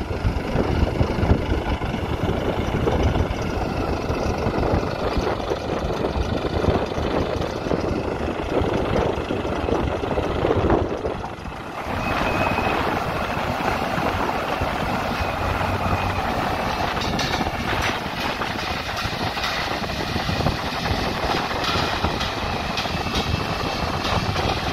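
Farm tractor engine running steadily while hitched to a Gaspardo seed drill, with a brief dip in loudness about eleven seconds in.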